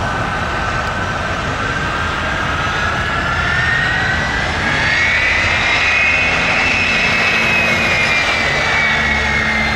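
Jet aircraft engines running with a loud, steady whine. The whine rises in pitch over the first several seconds, then slowly eases down, over a steady low rumble.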